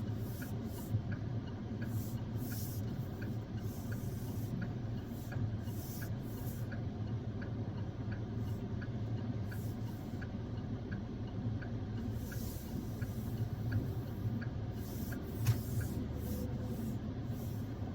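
Car cabin noise while driving in heavy rain: a steady low road-and-engine rumble with irregular hissing splashes of rain and tyre spray. A faint, even tick repeats about every 0.7 seconds throughout.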